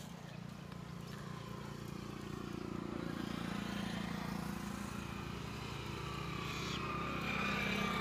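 A motor vehicle's engine running steadily, growing gradually louder as it approaches, with a slow drift in pitch.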